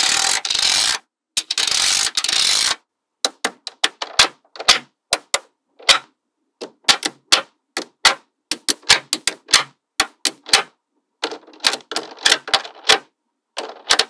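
Small metal magnetic balls clicking together: two rattling runs in the first three seconds as whole rows of balls snap down onto the layer, then a long string of sharp, irregular clicks as balls are snapped into place one or a few at a time.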